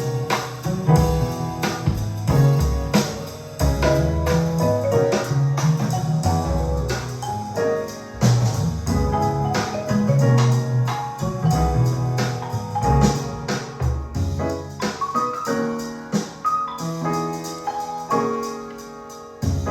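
Piano-led instrumental music with bass and light percussion, played back through a pair of 1982 Klipsch La Scala horn speakers driven by a Decware Zen Triode SE84UFO2 tube amplifier. The deep bass drops away in the last few seconds, leaving mostly the keyboard.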